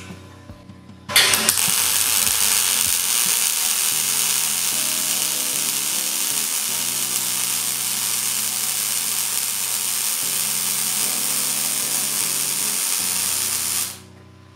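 MIG welding arc running a continuous bead on thin 0.9 mm car-body steel sheet at a steady travel speed. A steady hiss starts abruptly about a second in and cuts off near the end when the arc is stopped.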